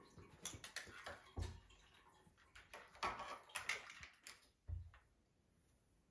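Siberian kitten playing on its own: a flurry of light clicks, taps and scrapes for about four seconds, with a soft thump about a second and a half in and another near five seconds.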